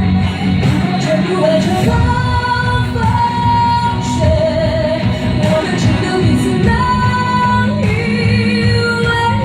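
A song playing, with a singing voice holding long notes over a band accompaniment and a steady beat.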